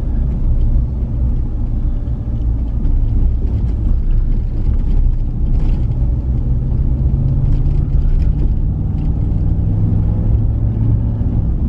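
Ram Rebel pickup truck driving on the road while towing a trailer: a steady low engine and road rumble.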